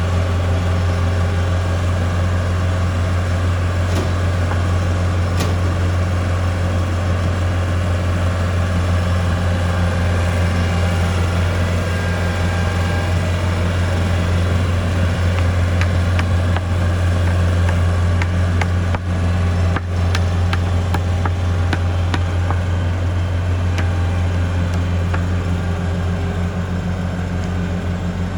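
A heavy engine running steadily at a constant speed, giving a deep, unchanging hum, with a few sharp clicks and knocks over it.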